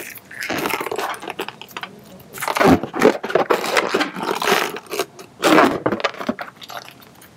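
A partly inflated 5-inch latex round balloon handled at its neck as it is knotted. The latex rubs and scrapes against the fingers in several irregular bursts.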